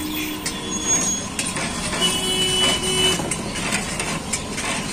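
Street traffic: vehicles running and passing, with scattered knocks and a steady tone that sounds for about a second near the middle.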